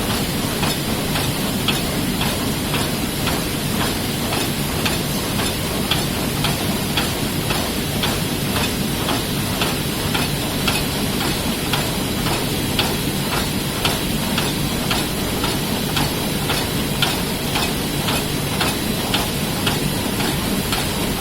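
Heidelberg Speedmaster SM72 six-colour offset printing press running in production, a steady mechanical drone with a rhythmic clatter of clicks repeating at an even pace.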